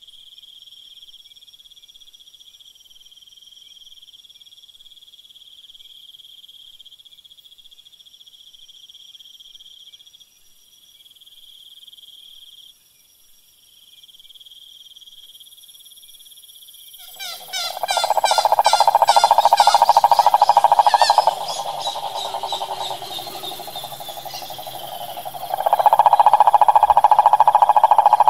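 A steady high trilling of insects, then a male Rhinella toad calling with its vocal sac inflated: a loud, fast-pulsed, low trill that starts a little past halfway, breaks off and drops to a quieter level, then comes back loud near the end.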